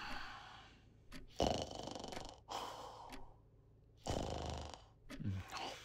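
A man snoring while dozing: slow, rhythmic breaths in and out, with a short low snort near the end.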